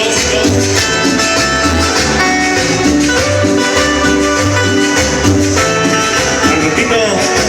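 Loud Latin dance music with a steady bass beat and plucked guitar over it, played over a party sound system.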